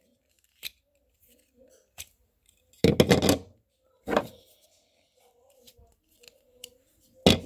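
Handling noises close to the microphone: scattered sharp clicks and knocks, with a louder clatter about three seconds in and another near the end.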